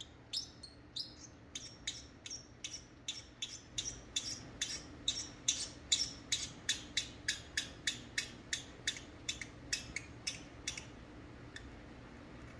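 Pacific parrotlet calling in a long run of short, high-pitched chirps, about three to four a second, spaced out at first and coming faster in the middle, then stopping shortly before the end.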